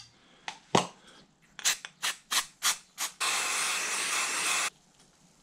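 Aerosol can of stainless steel cleaner sprayed onto a microfibre cloth in one steady hiss of about a second and a half, cut off sharply. Before it comes a series of short clicks and knocks.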